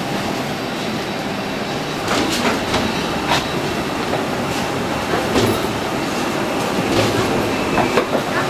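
Steady rushing noise with irregular clacks and knocks from footsteps and luggage moving over the floor of an airport jet bridge.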